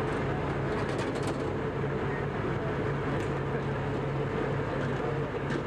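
Steady drone of an idling engine, one low hum holding the same pitch throughout, over a wash of outdoor noise, with a few faint clicks.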